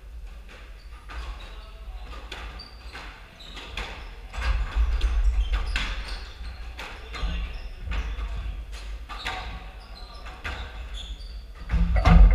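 Squash rally: the hard rubber ball smacking off rackets and the court walls again and again, with the players' footfalls on the wooden floor, and a loud thud near the end.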